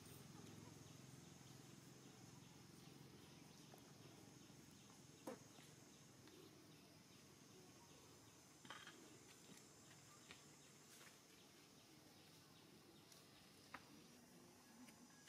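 Near silence: faint outdoor ambience with a steady high drone of insects and a few soft clicks.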